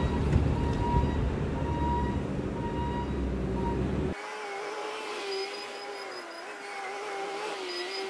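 Bobcat T650 compact track loader's diesel engine running steadily as the machine reverses, with a regular beeping, typical of its backup alarm. About four seconds in, the deep engine rumble drops out abruptly, leaving a fainter wavering whine.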